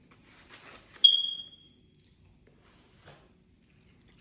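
A single sharp clink about a second in, ringing in one high tone that dies away within about half a second, typical of a utensil striking a dish; soft rustling comes just before it and a faint knock near the end.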